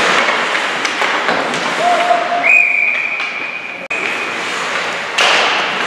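Ice hockey arena crowd noise: spectators' chatter and rink sounds. About halfway through, a steady high tone is held for about two seconds.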